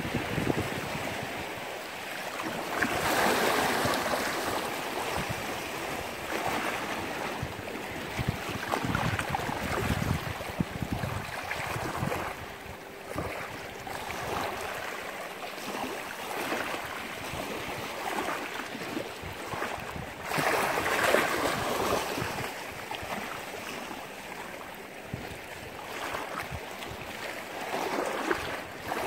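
Sea waves washing against the shore, the wash swelling and fading in slow surges, loudest about three seconds in and again around twenty-one seconds, with wind buffeting the microphone.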